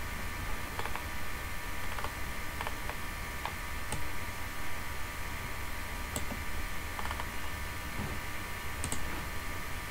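Scattered, irregular computer mouse clicks, a dozen or so, over a steady background hiss with a faint high electrical whine.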